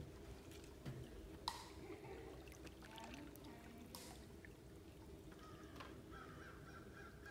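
Faint sound of spring water flowing over shallow rock ledges, with a couple of sharp clicks about a second and a half in and again about four seconds in.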